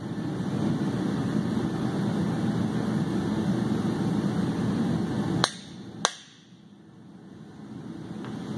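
A handheld air tool runs steadily, driving a new cam bearing into a 7.3 Powerstroke diesel block with a cam bearing installer. It stops about five seconds in, followed by two sharp metallic clicks about half a second apart, and starts up again near the end.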